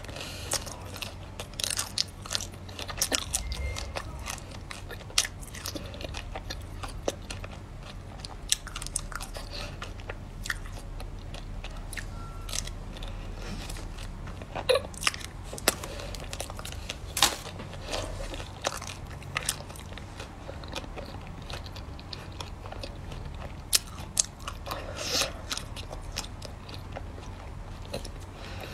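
Biting and crunching of a hard-frozen chocolate-coated ice cream bar, then chewing the frozen pieces, with many sharp, irregular crunches.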